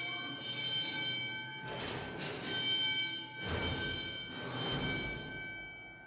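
School fire alarm horns sounding a steady, high-pitched alarm tone, set off while testing the newly replaced pull station.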